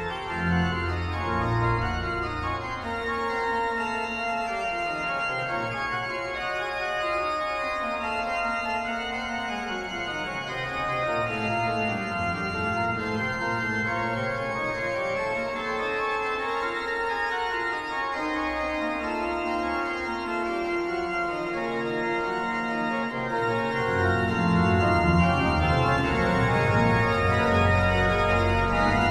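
Organ music: sustained chords with slowly moving lines. The deep bass notes drop out after a couple of seconds and come back near the end, where the music gets louder.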